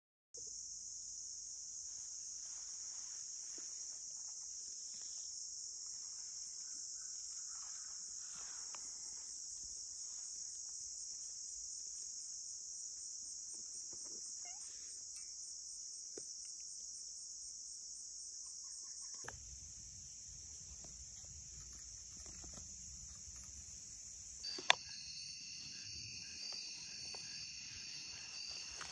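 Late-summer insect chorus: a steady high buzzing trill with a fine pulse. About two-thirds through it changes abruptly; near the end a sharp click sounds and several steady high tones join in.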